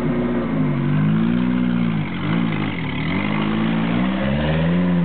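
Suzuki Samurai 4x4's engine revving up and down under load as it crawls over steep, uneven ground, its pitch rising and falling several times and dipping sharply about two and three seconds in.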